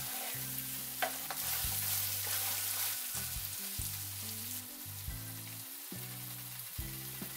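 Mutton pieces in ghee-and-masala gravy sizzling in a non-stick pan while a wooden spatula stirs them, with an occasional light knock of the spatula.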